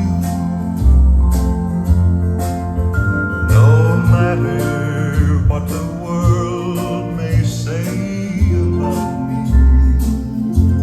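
A song with a steady drum beat, deep bass notes, guitar and singing, played through a Marantz Ki Pearl Lite amplifier and B&W 602 S3 bookshelf speakers.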